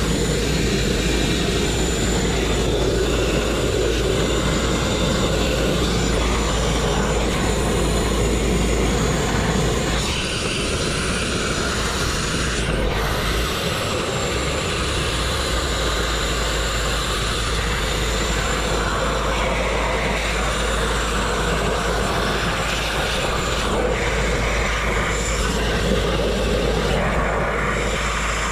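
Abrasive grit-blast nozzle running continuously, a steady loud hiss as it strips rust and paint from a steel truck frame, over a low steady rumble.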